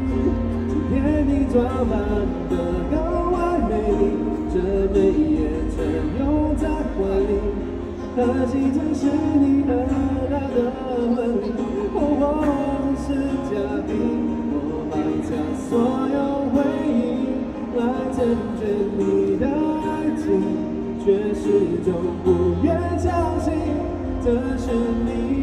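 A man singing a Mandarin ballad to his own acoustic guitar accompaniment.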